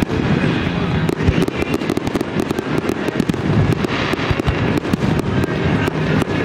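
Fireworks display: aerial shells bursting in quick succession, a steady run of sharp bangs and cracks that grows thicker about two seconds in.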